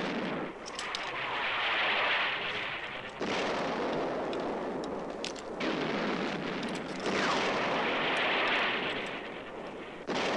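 Battle sound effects from a war film: a series of explosions a few seconds apart, each starting suddenly and rumbling on for a couple of seconds, with sharp gunshot cracks over them.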